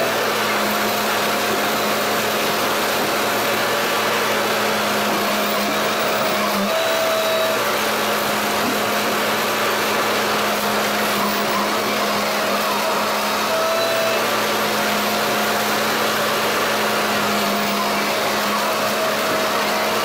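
Large tree-stump shredder and excavator running together: a constant mechanical whirr with steady humming tones and no breaks, as stumps are fed into the shredder's hopper.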